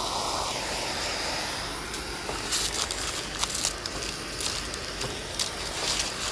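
Handheld propane torch burning with a steady hiss as it is played over a brown-sugar and honey glaze on a ham. From about two seconds in, sharp crackles come through as the sugar caramelizes.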